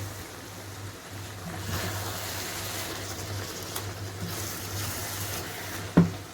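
Spinach stew cooking in a pot on the stove, a steady sizzling hiss over a low steady hum, with one sharp knock about six seconds in.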